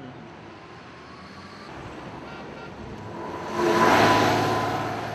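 Road traffic running steadily, with a bus passing close: the sound swells to its loudest about four seconds in, then fades.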